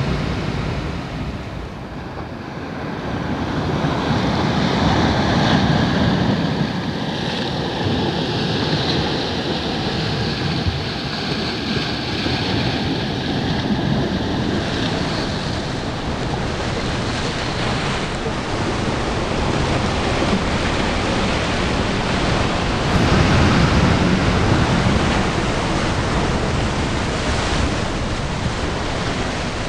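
Sea surf breaking and washing over a rocky shore: a continuous rush of water that swells louder twice, about five seconds in and again past the middle.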